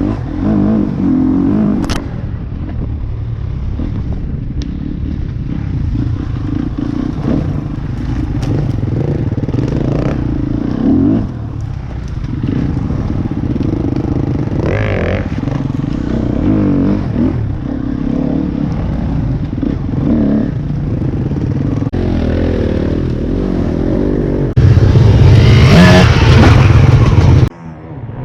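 TM 300 two-stroke dirt bike engine revving hard, its pitch rising and falling as the throttle opens and closes. Near the end it runs much louder at high revs for about three seconds, then the sound drops away suddenly.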